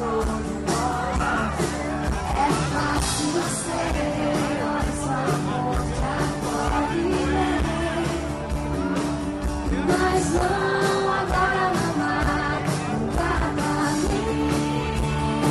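Live pop-rock band playing through a concert PA, with electric guitars, and a woman singing lead into a handheld microphone.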